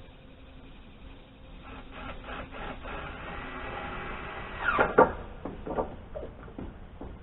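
Pine 2x6 board scraping and squeaking against wooden framing as it is worked into place, then a couple of sharp wood-on-wood knocks about five seconds in, the loudest moment, and a few lighter knocks after.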